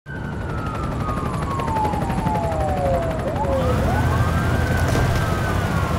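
A siren wailing: its pitch slides slowly down, then sweeps back up and holds high, over a low steady rumble of traffic.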